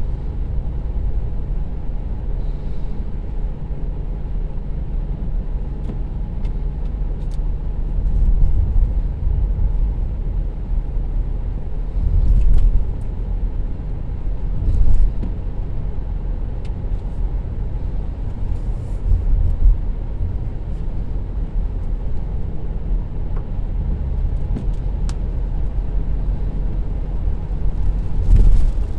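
Car cabin noise while driving on wet pavement: a steady low rumble of engine and tyres, swelling briefly a few times, with a few faint ticks.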